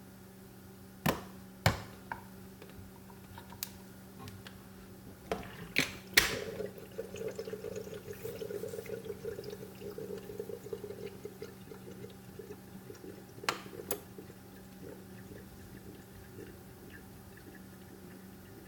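One-cup coffee maker in use: a few sharp clicks and knocks, then liquid pouring and trickling into a cup for about six seconds, then two more clicks. A low steady hum lies underneath.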